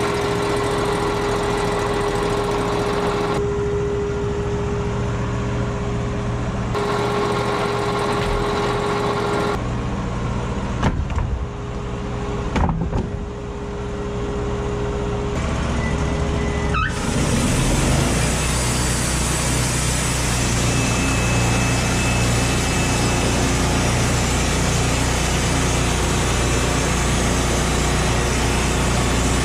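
An engine running steadily. Its sound changes abruptly several times, with a few sharp knocks about eleven to thirteen seconds in.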